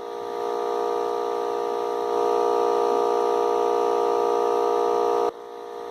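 5.1 amplifier humming through its speakers with the music paused: a steady buzzing hum with many even overtones. It gets slightly louder about two seconds in and cuts off abruptly near the end. The hum comes from a deliberately set-up fault in the amplifier's signal chain.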